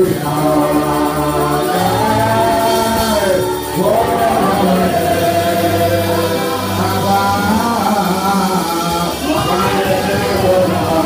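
Live church praise and worship music: a lead singer on a microphone singing a gliding melody over sustained keyboard chords and bass notes.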